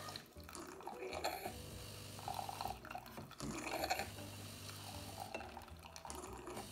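De'Longhi Dinamica ECAM350.55 bean-to-cup coffee machine running its milk-circuit Clean cycle: the pump hums, with a couple of short breaks, while hot water and steam spurt and gurgle out of the milk spout into a mug, flushing out leftover milk froth.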